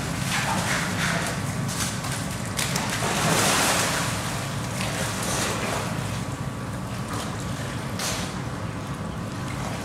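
Steady rush of water with splashing as polar bears plunge into a pool, one splash about eight seconds in.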